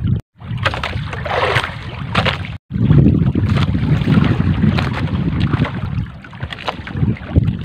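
Wind buffeting the microphone aboard a small outrigger fishing boat at sea, a loud low rumble with scattered knocks. The sound cuts out completely twice, briefly, in the first few seconds.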